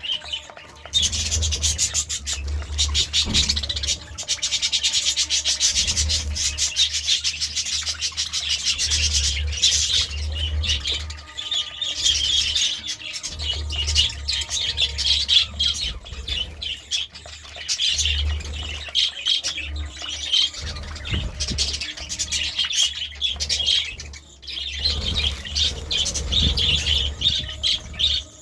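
Budgerigars chirping and chattering in a rapid, continuous warble with squawks mixed in, easing briefly near the end.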